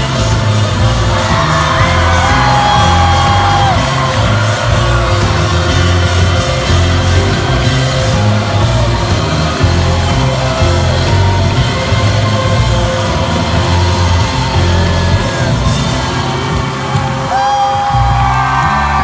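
Live folk-rock band playing loudly through a big outdoor PA, with heavy kick drum and bass driving the beat. Yells and whoops rise over the music now and then.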